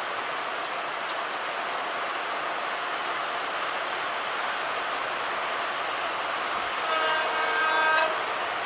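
Heavy rain falls steadily on the platform and track. About seven seconds in, an approaching WDG4 diesel locomotive sounds its horn for about a second, louder than the rain.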